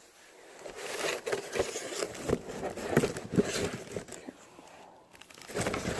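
Packaging being handled: irregular rustling of cardboard and plastic with small knocks and clicks as fan parts are packed back into their box. It eases off for a moment near the end, then picks up again.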